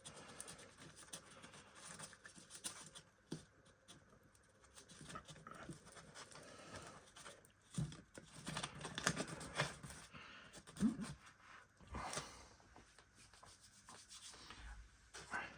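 Faint rubbing and scraping of small parts being handled at a workbench, the wheels and axle of an old Bachmann B1 model locomotive being turned and set, with a sharp click about twelve seconds in.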